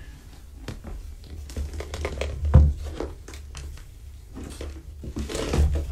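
Crinkling and rustling with scattered clicks and two louder bouts with thumps, about two and a half seconds in and near the end, over a steady low hum.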